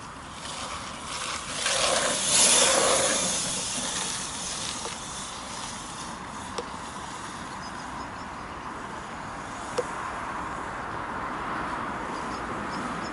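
Steady outdoor background noise with a rushing swell about two seconds in that fades over the next second or so, and two faint clicks later on.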